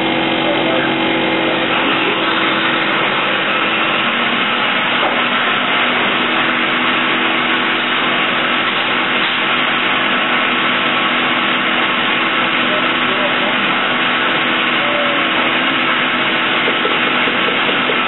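Busy restaurant kitchen ambience: a steady rush of ventilation and extraction with a low hum, and cooks' voices murmuring in the background.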